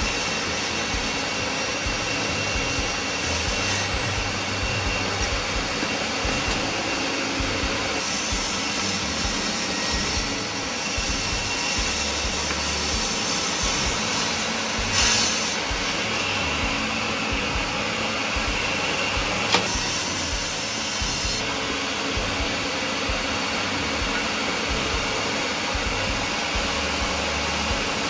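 Table saw running and cutting through a glued-up panel of mixed hardwood strips as it is fed slowly past the blade, a steady dense sawing noise. There is a brief louder surge about halfway through and a single sharp click a few seconds later.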